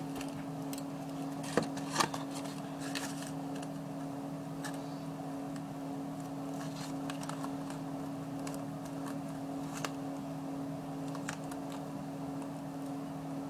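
Faint crinkles and clicks of hands handling paper and peeling adhesive squares to stick down a paper tab, over a steady low hum.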